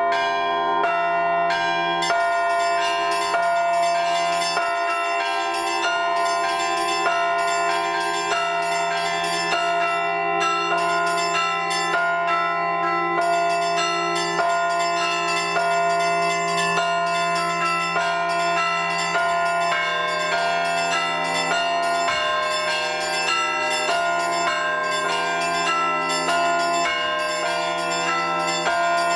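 Russian Orthodox church bells rung by hand: a continuous, rhythmic peal of many smaller bells struck several times a second over a low, sustained bell tone.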